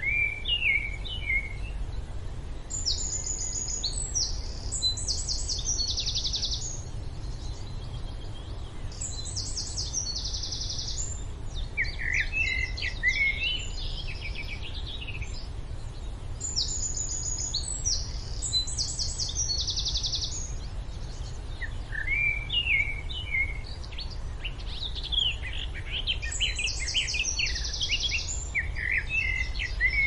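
Birds chirping and singing in repeated phrases of quick, high notes, each phrase coming back every few seconds, over a steady low background rumble.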